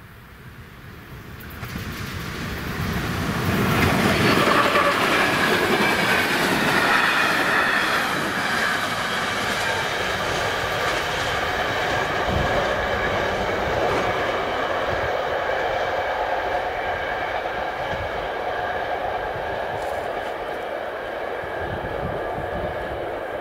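Passenger train running on the track. It grows louder over the first few seconds, then carries on steadily as a rumble with a whine of several steady tones.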